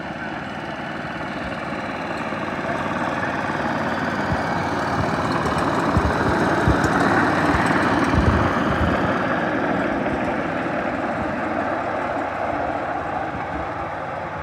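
A 7.5-inch gauge ride-on miniature train running by: a steady mechanical running sound that builds as it approaches, is loudest about eight seconds in as it passes close, then fades, with a few low thumps near the peak.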